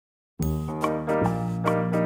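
Children's background music that starts abruptly about half a second in, with notes struck at a steady pace of about two and a half a second over a held bass line.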